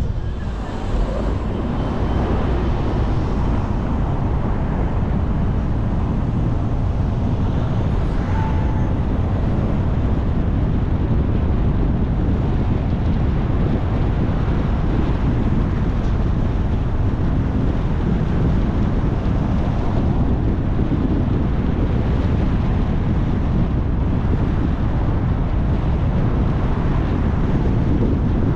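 Steady wind rumble buffeting a microphone mounted on the hood of a moving car, mixed with the car's tyre and road noise as it drives along a city street.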